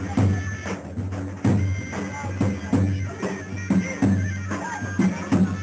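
Folk dance music: a heavy drum beating steadily under a reedy wind instrument's held melody.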